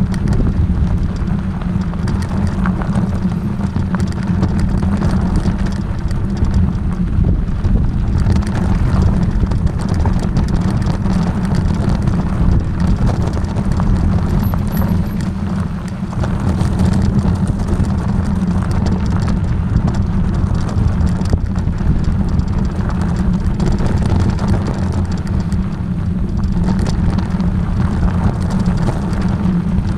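Motor vehicle on the move: a steady, loud low rumble of engine and road noise, easing briefly about halfway through.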